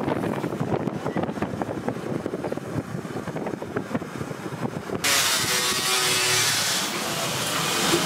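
Road and wind noise of a moving vehicle, heard from inside as a dense, rapidly fluttering rush. About five seconds in it cuts suddenly to a steady, brighter hiss.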